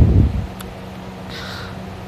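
The end of a loud snore from a man sleeping on his back, dying away within the first half second. It is followed by a pause between snores with a steady low hum underneath.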